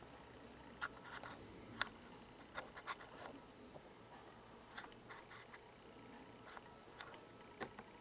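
Quiet room tone broken by about a dozen faint, irregular clicks and ticks.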